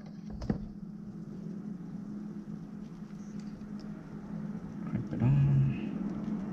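A steady low hum, with a single sharp click about half a second in as a wire is worked with pliers. About five seconds in comes a brief, loud, low hum of a man's voice.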